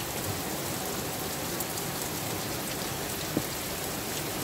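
Heavy rain pouring down in a steady hiss, with one small click about three and a half seconds in.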